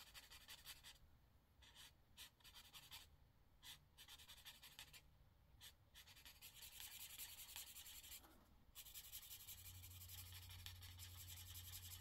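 Faint scratching of a marker tip stroked across paper as an area is colored in, in stretches broken by short pauses.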